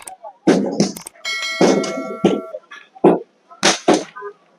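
A piece of metal is struck once about a second in and rings for about a second with a bright, many-overtoned clang, amid other short knocks and voices.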